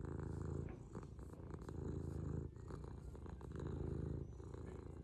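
A cat purring close to the microphone while being stroked, a steady low rumble that rises and falls with each breath.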